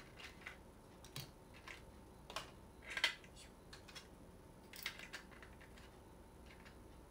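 Small hard merchandise pieces being handled on a desk: scattered light clicks and taps, the loudest about three seconds in.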